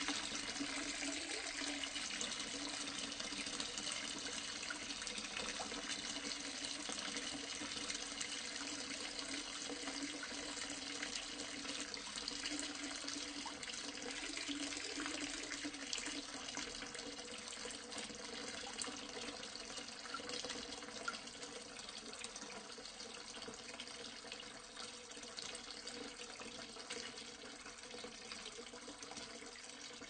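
Water pouring steadily into a half-full sink, the pour easing slightly quieter over the last several seconds.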